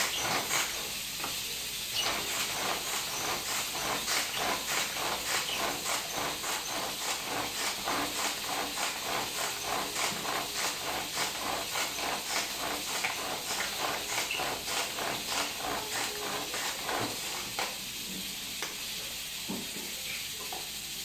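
Manual food chopper being worked by hand to chop tomato, a rhythmic series of short strokes about two a second that stops near the end, over a steady hiss.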